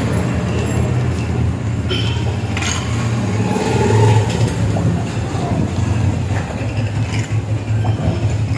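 Steady low mechanical hum, with a few faint clicks.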